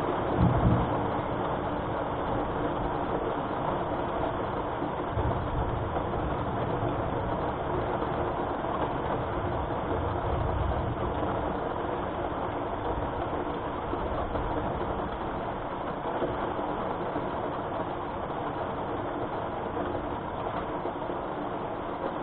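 Steady rain with low rolls of thunder: a brief louder rumble just after the start, and further low rumbles around five and ten seconds in.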